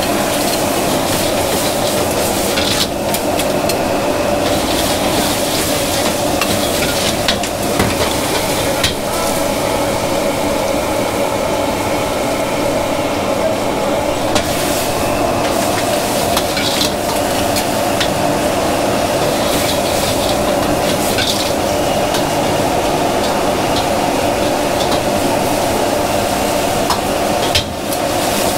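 Steady sizzling of food frying, with scattered faint clicks.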